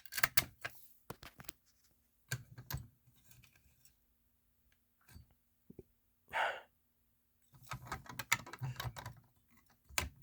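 Scattered light clicks and knocks of small hard parts being handled, with a short rustle or scrape about six seconds in and a quicker run of clicks near the end.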